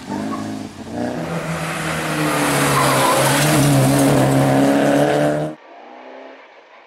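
1975 Fiat 127 Group 2 rally car's 903 cc four-cylinder engine running hard at high revs as the car drives fast past and through a tarmac corner, growing louder, with tyre noise. The sound drops away abruptly about five and a half seconds in to a much quieter engine hum.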